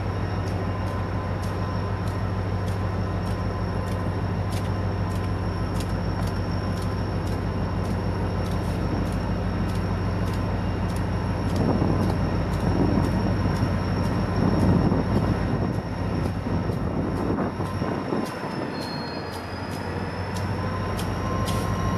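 EMD GP40-2 diesel locomotive's turbocharged 16-cylinder engine running steadily as the locomotive rolls slowly past, with the noise of wheels on the rails growing louder and rougher about halfway through. Near the end the low engine note drops away as the locomotive moves on.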